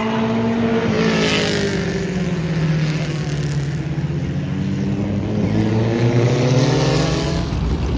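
Several mini stock race cars' four-cylinder engines running hard at racing speed, the pitch of each rising and then falling as the cars go by one after another. The two loudest passes come about a second in and near the end.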